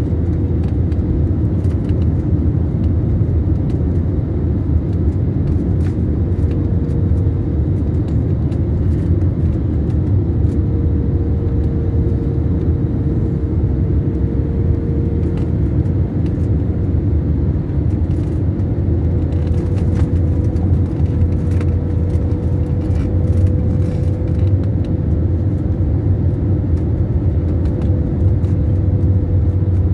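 Airliner's steady low rumble with a faint, slightly wavering hum running through it and a few small clicks.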